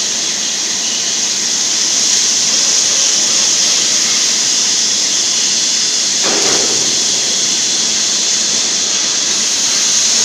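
Automatic submerged arc welding head laying a bead along a steel plate, giving off a steady, even hiss.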